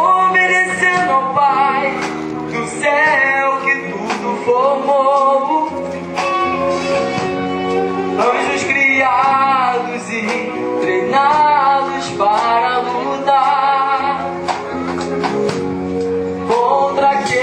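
Worship song: singing carried over a sustained instrumental accompaniment.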